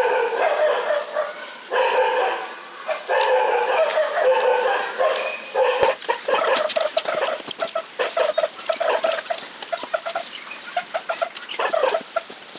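Chickens clucking: drawn-out calls in the first half, then quick short clucks. A single sharp click comes near the middle.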